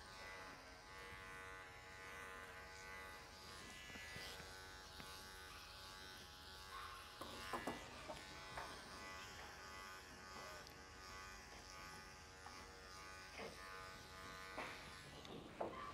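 Electric dog clipper running steadily, a faint even buzz, as it trims a Shih Tzu's head coat, with a few light knocks of handling partway through.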